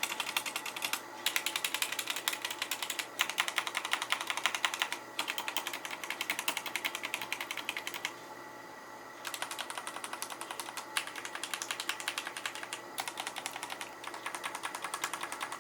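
Fast typing on an Akko 3084 Chopper 75% mechanical keyboard with Akko pink linear switches and dye-sub PBT OEM-profile keycaps: a dense run of rapid key clacks. The typing pauses for about a second just past the middle.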